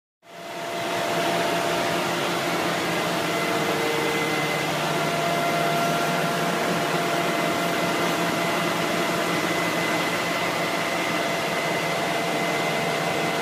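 Truck-mounted pump unit on a frac truck running steadily while it draws descaling solution from a drum, giving an even mechanical whir with a few steady tones.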